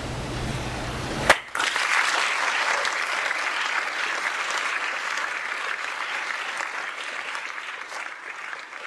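Audience applauding, with a sharp click about a second in; the applause then fades away slowly.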